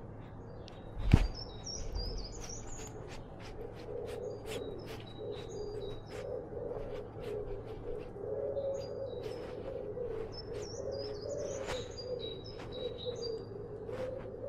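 A small songbird singing in quick high twittering phrases, in two bouts with a pause between. Scattered light clicks and rustles run under it, with one sharp knock about a second in.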